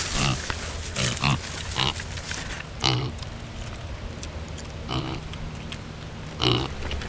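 Piglets grunting in short, burp-like calls, about seven of them spaced unevenly.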